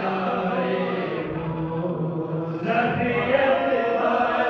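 Men's voices chanting zikr together, Sufi devotional remembrance of God: a low chanted note is held for about two and a half seconds, then a new phrase begins.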